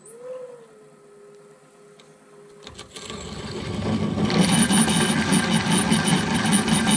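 Floor-standing drill press with a 1-inch twist drill: its faint motor hum rises in pitch as the speed is bumped up, then settles. About three seconds in, the bit bites into the 3/8-inch metal plate and a loud, steady cutting noise builds and holds. The speed was raised to keep the torque up under this heavy cut.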